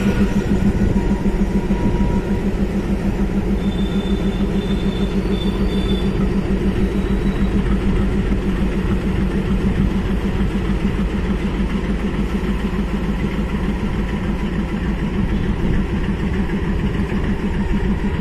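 WDG-3A diesel locomotive's engine running close by with a steady, deep throbbing beat.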